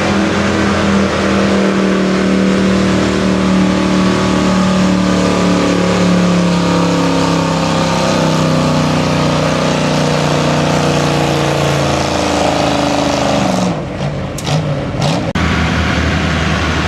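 1973 Dodge pickup's engine running hard at high revs while pulling a weight-transfer sled, its pitch sagging slowly as it bogs down under the load until it drops off about 13 seconds in. Near the end another truck's engine idles.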